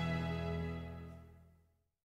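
Background music: a sustained chord that fades out and ends shortly before the end.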